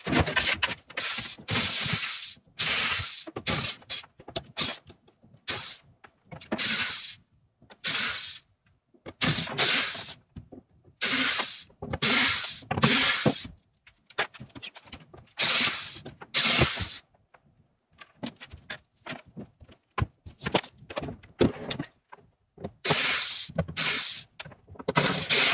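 Cordless power driver backing screws out of a wooden bed box in repeated short bursts, each about a second long, with knocks from the wooden panels between them.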